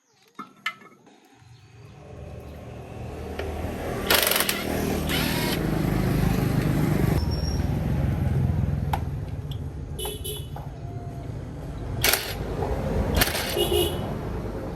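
Tractor engine running with a steady low rumble that builds up over the first few seconds, with several sharp knocks on top of it.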